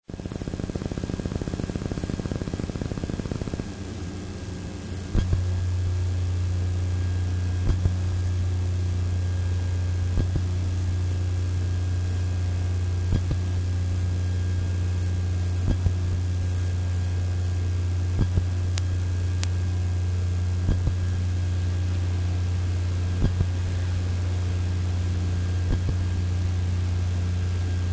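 A low rumbling noise for the first few seconds, then a steady low hum with a soft click about every two and a half seconds.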